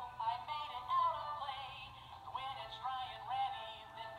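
A talking stuffed toy's built-in sound chip playing a song: a recorded voice singing a tune through a tiny speaker, thin and tinny with no bass.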